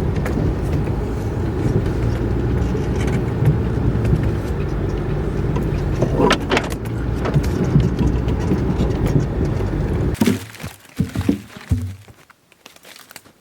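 A vehicle engine running with a rough low rumble and scattered rattles and knocks, which stops abruptly about ten seconds in, followed by a few thumps.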